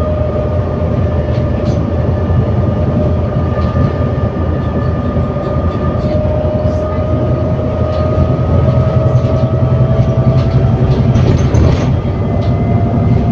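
ADL Enviro400 City double-decker bus with a Voith automatic gearbox under way: the engine and driveline run with a low rumble and a steady whine that slowly rises in pitch as the bus picks up speed. A few brief rattles come near the end.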